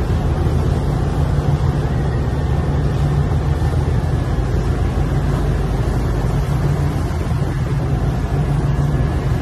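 Steady, low engine drone of a boat under way at sea, with a constant rush of water.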